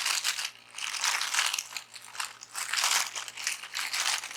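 Plastic packaging crinkling and rustling in irregular bursts as a camera lens is unwrapped by hand.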